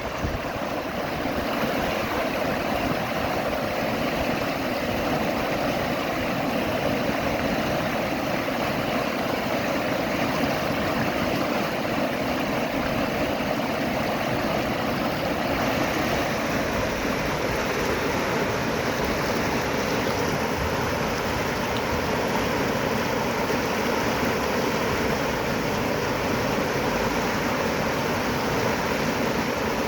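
Running water rushing steadily, an even, unbroken noise with no surges.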